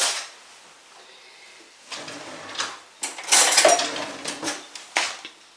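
Kitchen handling sounds: scattered knocks and clatters of dishes and utensils, with a longer, louder clatter about three seconds in.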